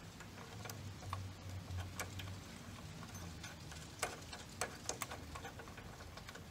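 Small metal clicks and light ticks, scattered and irregular, as a washer and lock nut are threaded by hand onto a motorcycle exhaust bracket screw, over a faint low hum.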